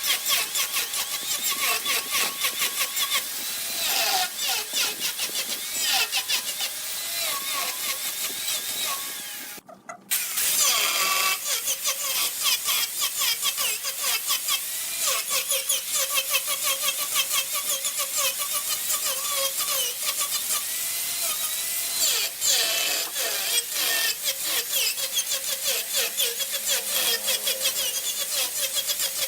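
Wood lathe spinning a workpiece while a turning tool cuts into it: fast, rhythmic scraping and shaving with a wavering squeal. The sound breaks off briefly about a third of the way through, then carries on.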